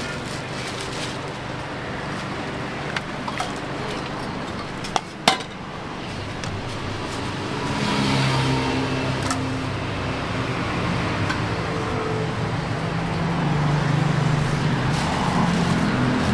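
Roadside street-food stall ambience: steady traffic noise with a few sharp clinks of dishes and utensils, the loudest a pair about five seconds in. From about eight seconds a vehicle engine grows louder and runs on to the end.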